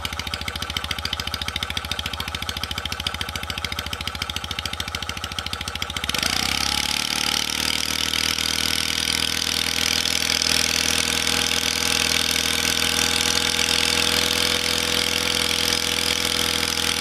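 Stuart Turner Sirius model steam engine running on live steam with rapid, even exhaust beats. About six seconds in it speeds up: its pitch rises and settles into a steady, faster whir with louder hissing.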